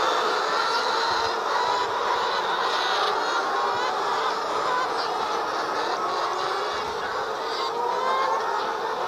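A large flock of laying hens clucking and calling all at once, a steady, dense din of many overlapping bird voices with no pauses.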